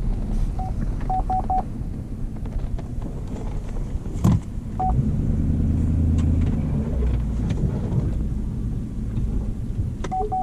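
Truck running on the road, a steady low rumble of engine and tyres that swells for a couple of seconds midway. Short electronic beeps at one pitch sound over it: one, then three quick ones about a second in, another near five seconds, and a few more near the end, with a single sharp knock about four seconds in.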